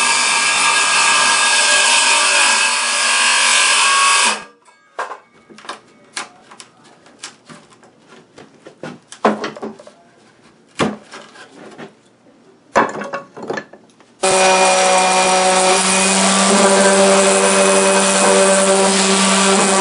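Handheld wood router running and cutting a cord opening into plywood and hardwood for about four seconds, then shutting off. This is followed by about ten seconds of scattered knocks and clatter. The router then starts again and runs steadily for the last five seconds or so.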